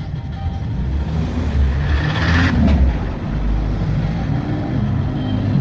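Chevy Pop car running with a steady low rumble, with a brief hiss about two seconds in.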